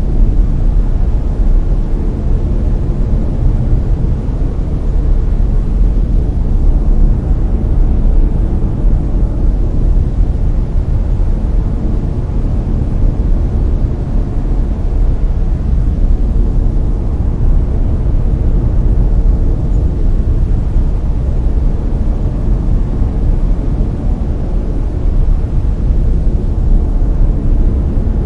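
Layered brown noise: a steady, deep rumbling hiss with most of its weight in the low end and little treble, unchanging throughout.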